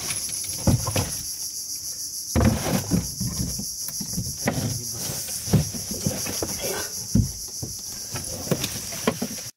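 Steady, high, pulsing insect chorus, with scattered knocks and thumps from gear being handled in a small boat.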